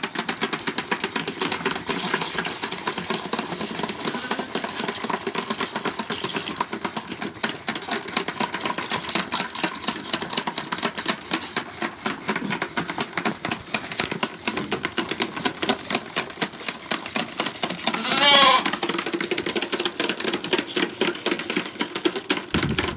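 Several lambs sucking on the teats of a milk-feeding bucket, a dense run of rapid clicks and smacks. About eighteen seconds in, one lamb bleats once.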